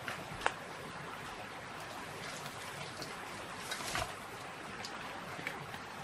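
Footsteps crunching and rustling through dry leaf litter on a forest slope, with a few sharp crackles about half a second in and around four seconds, over a steady background hiss.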